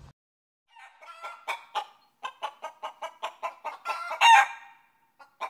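Chicken clucking rapidly, about five short clucks a second, with a louder drawn-out squawk near the end.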